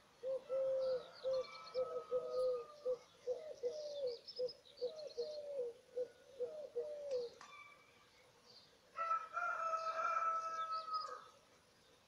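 Birds calling and singing: a quick run of short, repeated low notes with thin high chirps above them for about seven seconds, then, after a short pause, one held call of about two seconds.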